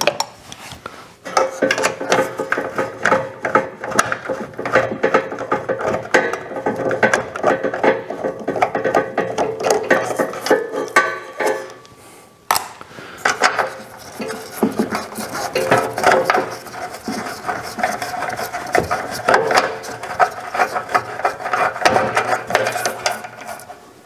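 A wrench loosening the two nuts on the blower motor's mounting studs of a Suburban RV furnace's metal case, making rapid metallic clicking and scraping. There is a short break about halfway through.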